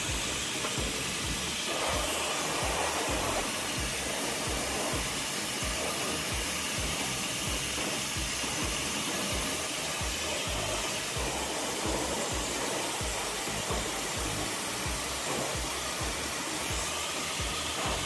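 Dyson Supersonic hair dryer blowing steadily.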